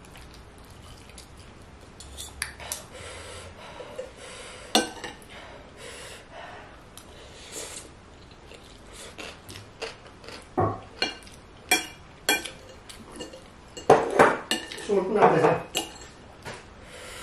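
Metal spoon and fork clinking and scraping against a ceramic plate while eating, in scattered short clicks, with a louder, busier run of clatter about fourteen seconds in.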